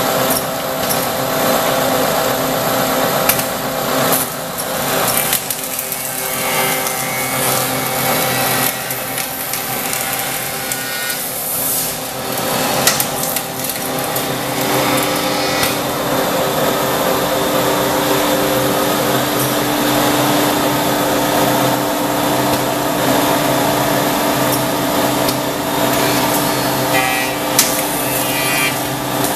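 SMB Flamingo KFA automatic copying shaper running. Its cutter motors hold several steady tones over a loud rush of noise, and a few louder passes come as the cutters work the wooden blanks, around five, twelve and twenty-seven seconds in.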